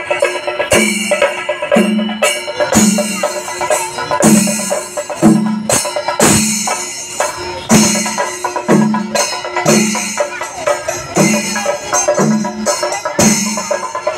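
Kerala temple percussion ensemble (chenda melam): drums beating with brass cymbals clashing, in a steady beat of about one stroke a second.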